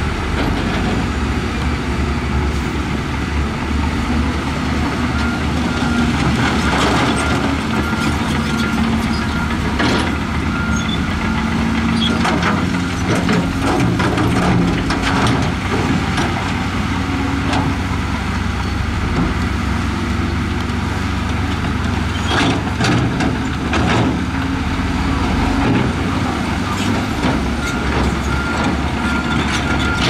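Heavy diesel earthmoving machinery running steadily under load, with scattered knocks and clatter of rock. A reversing alarm beeps in two spells, near the middle and near the end.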